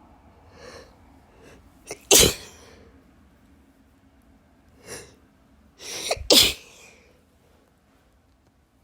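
A person sneezing twice, about four seconds apart, in a sneezing fit. Each loud sneeze is preceded by quick, softer in-breaths.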